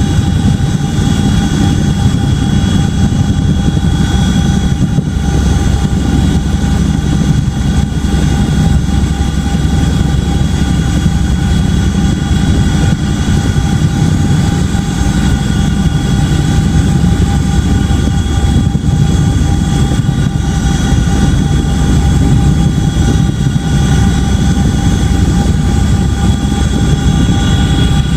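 Boeing CH-47D Chinook tandem-rotor helicopter running, a loud steady low rumble from its rotors and engines with a whine of several steady high tones from the turboshafts over it.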